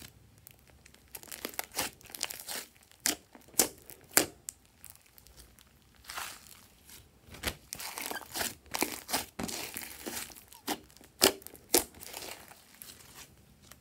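Thick mint-green slime with small beads mixed in being pressed, stretched and squeezed by hand: irregular sticky crackles and sharp pops.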